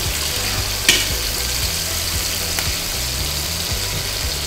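Soy-and-vinegar sauce with garlic and onion sizzling steadily in a frying pan while it is stirred with a metal spoon, with one sharp clink of the spoon on the pan about a second in.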